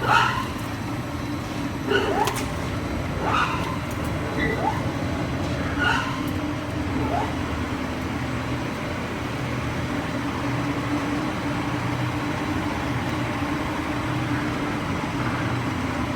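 Steady mechanical hum with a low tone, and a few short clicks and small rising squeaks in the first several seconds.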